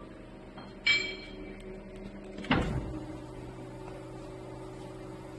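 Vertical broaching machine running with a steady, even hum. A sharp metallic clink with a bright ring comes about a second in, and a heavier clank about two and a half seconds in.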